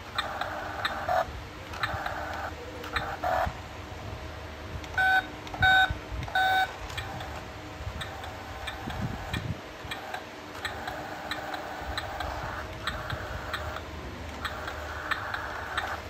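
Remote-control toy Suzuki mini truck: its drive motor whirs in short spurts of a second or two. Near the middle, three short electronic beeps sound about two thirds of a second apart.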